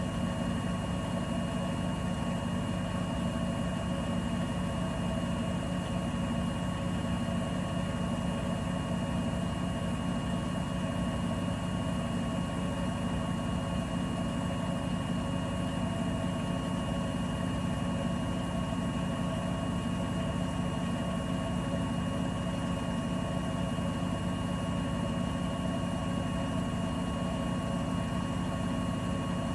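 Bosch Serie 4 washing machine running mid-cycle: a steady low hum with constant thin whining tones above it, without pauses.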